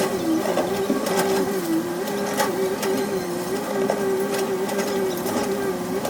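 Caterpillar 320C hydraulic excavator's diesel engine running steadily under working load, its pitch dipping slightly every second or so, with scattered short knocks and clanks.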